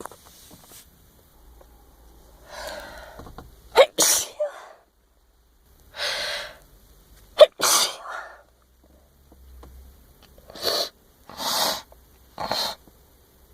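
A woman sneezing: two full sneezes about three and a half seconds apart, each after a drawn-in breath, then three shorter, quicker bursts near the end.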